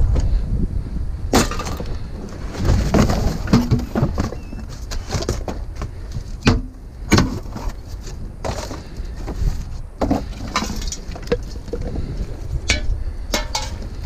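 Irregular clattering and knocking of scrap junk being shifted and pulled loose, with sharp clinks like glass or thin metal and two sharper knocks about halfway through, over a low rumble of wind on the microphone.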